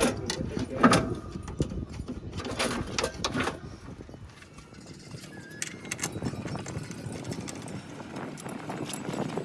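Scattered, irregular knocks and clinks of hand tools on metal engine parts. They are louder and closer together in the first few seconds, then sparser.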